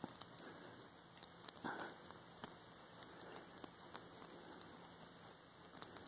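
Faint, scattered light clicks and scraping of a steel lock pick working the pin tumblers in the brass cylinder of a Chateau C870 padlock. The loudest scrape comes just under two seconds in.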